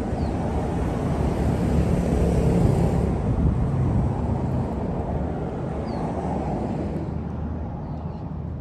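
A motor vehicle's engine rumbling as it passes, growing louder over the first few seconds and then slowly fading.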